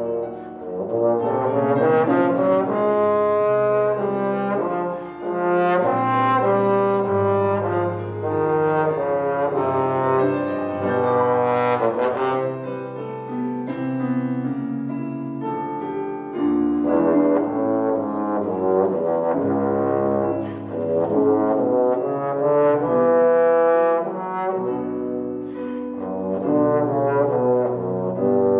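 Trombone playing a classical recital piece: a phrased, legato melody with short breaths between phrases. Sustained low notes sound under it at the same time, and the music carries on while the player turns a page, so there is an accompaniment, most likely piano.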